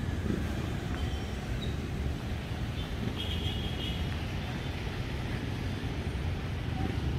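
Street traffic noise: a steady low rumble of cars and vans running along the avenue.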